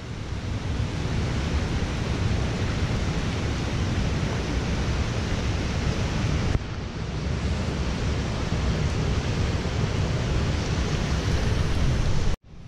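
Steady rush of a rain-swollen mountain stream and small waterfall, mixed with low rumbling wind buffeting the microphone. The sound shifts at a cut about six and a half seconds in and drops out for a moment just before the end.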